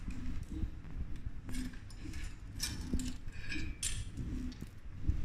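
Bicycle chain clinking and rattling in short, irregular bursts as it is handled and worked off the chainring and rear sprockets, over a steady low rumble.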